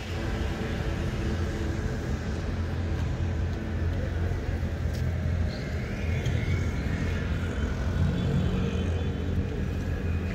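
City street traffic: motor vehicles running by with a steady low hum.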